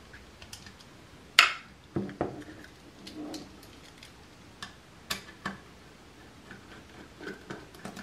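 Scattered clicks and knocks as a Phillips screwdriver and the plastic-and-metal ignition lock housing are handled while its retaining screws are taken out. The sharpest click comes about a second and a half in, with duller knocks around two and five seconds.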